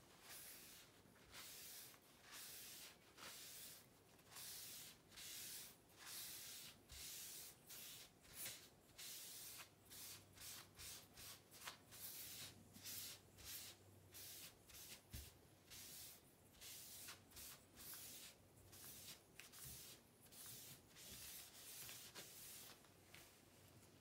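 A small ink-soaked pad rubbed over synthetic paper in short repeated strokes, each a faint scratchy swish, about one a second at first and about two a second in the second half.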